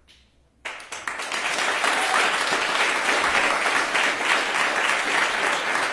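Audience applause, breaking out suddenly after a brief hush about half a second in and keeping up steadily.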